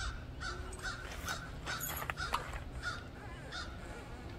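Crows cawing, a series of short calls about two a second, over a low steady rumble.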